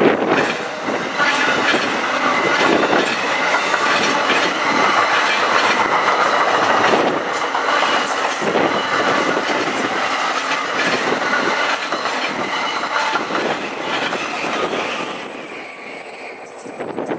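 A vehicle passing close by: a loud, continuous rushing noise with a faint high squeal in it, dying away over the last couple of seconds.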